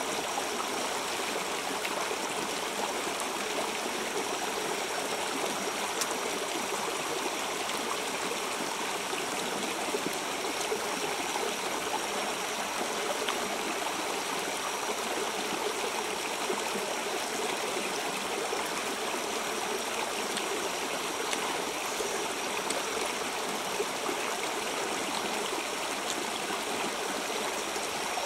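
Shallow river running over rocks: a steady, even rush of flowing water.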